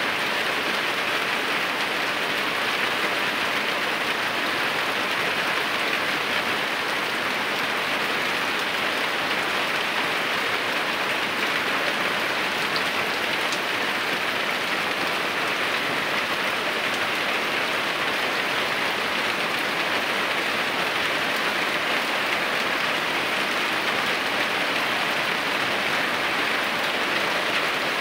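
Steady rain falling and splashing into standing water on a flooded yard, an even hiss that does not let up.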